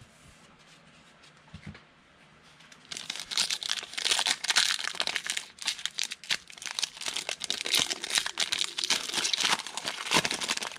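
Plastic trading-card pack wrapper being torn open and crinkled, beginning about three seconds in as a dense run of crackling rustles.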